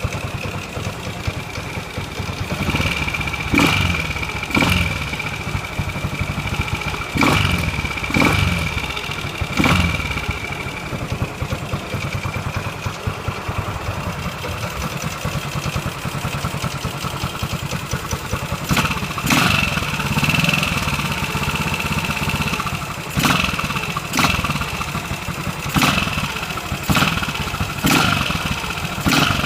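Ducati 450 Desmo single-cylinder engine idling, with a dozen or so short throttle blips that come in small clusters.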